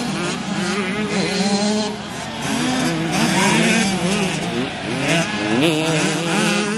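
Engines of several small youth motocross bikes revving hard, rising and falling in pitch as they race past. The notes overlap and no single bike stands out.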